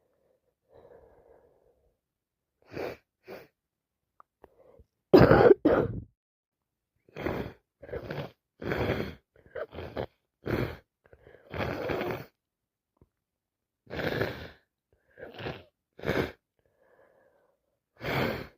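A sick person coughing hard again and again, in short runs of coughs with brief pauses between them; the loudest pair of coughs comes about five seconds in.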